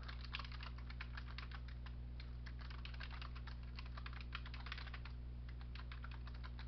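Typing on a computer keyboard: a fast, uneven run of keystroke clicks over a steady low hum.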